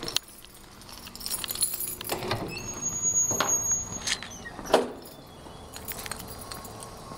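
Footsteps on brick paving with rustling and knocks from a handheld camera, a few sharp clacks among them. A thin high whine sounds for about a second in the middle.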